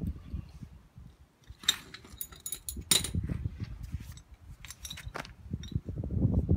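Sharp metallic clinks and taps of a wrench on the tie rod end nut as the nut is set flush with the end of the ball stud. The clinks come in two short clusters over a low rumble.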